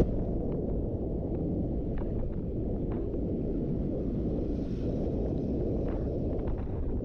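Muffled, steady low rumble of wind and road noise from a car driving along, with a few faint ticks.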